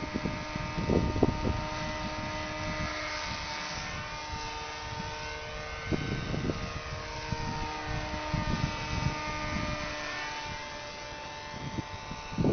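Radio-controlled model airplane's motor and propeller whining in flight, its pitch sliding up and down as the plane passes back and forth. Wind buffets the microphone in gusts.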